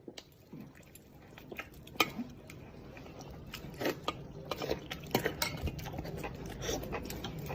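Dishes and cutlery clinking in irregular light clicks and knocks, over a low hum that slowly grows louder.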